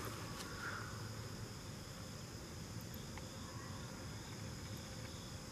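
Steady chorus of insects, crickets, a continuous high-pitched ringing that stays level throughout.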